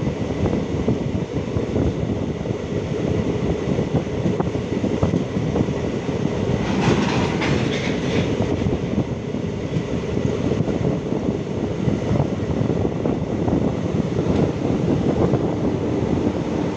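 Passenger train running along the line, heard from inside a coach at the window: a steady rumble and rattle, with the wheels clicking over the rail joints.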